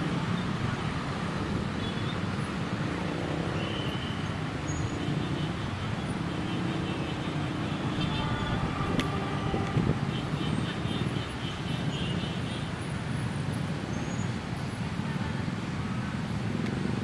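Steady low rumble of a passenger train's wheels on the rails as it pulls away, with faint high tones now and then.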